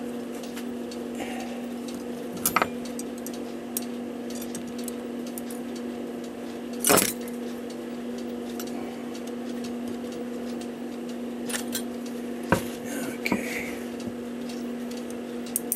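Small brass clock parts clicking and clinking as a cuckoo clock movement is taken apart by hand, wheels and levers lifted from between the plates and set down. A scattering of short clicks, the loudest about seven seconds in, over a steady low hum.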